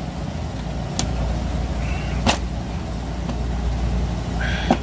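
Sharp plastic clicks, three of them with the loudest about halfway, as a rear fog light housing is pressed and worked in its cut-out in a plastic car bumper, over a steady low rumble.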